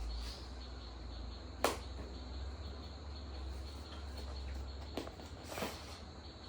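Handling noise from unboxing a gimbal: a few sharp clicks, the loudest about a second and a half in, over a steady low hum.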